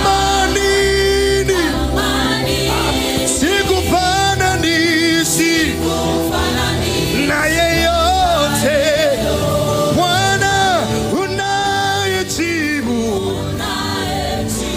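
Live Swahili gospel worship music: a male lead vocalist singing long held notes with vibrato, backed by a choir and a band with bass guitar holding steady low notes.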